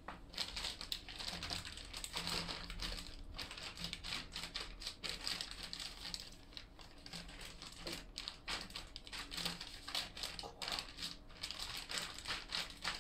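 Plastic bag of a flameless ration heater crinkling and crackling as it is handled, lifted, turned over and pressed flat by hand, starting suddenly.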